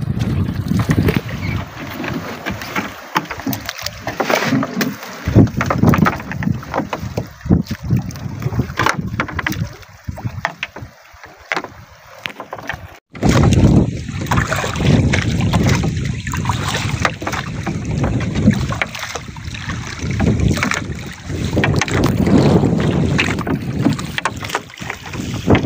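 Wind buffeting the microphone over water slapping against a small outrigger boat's hull, with irregular knocks and rustles as a gill net is paid out over the side.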